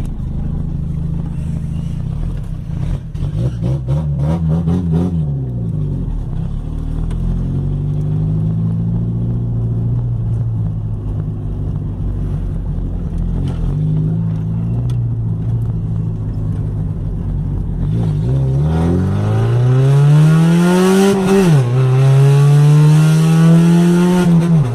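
Fiat Uno's engine running loudly through its exhaust, with a few short rises and falls in revs. Near the end the revs climb steadily, drop sharply, then climb again.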